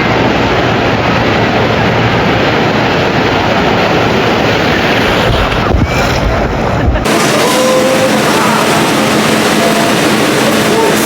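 Wind buffeting the microphone of a phone in a waterproof pouch, a loud rumbling rush, which about seven seconds in cuts abruptly to a steady, brighter rushing hiss.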